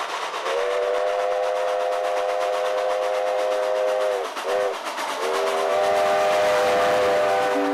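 Steam locomotive's chime whistle sounding a chord: a long blast, a short one about four and a half seconds in, then another long blast, over the steady chuffing and hiss of the engine working hard.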